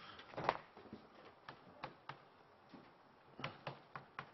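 Chalk tapping and clicking against a chalkboard as a lecturer writes: faint, irregular sharp taps, the loudest about half a second in.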